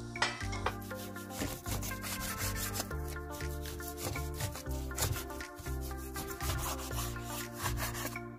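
A large kitchen knife slicing through raw beef on a wooden cutting board, the blade drawn through the meat and scraping against the board in repeated strokes. Soft background music runs underneath.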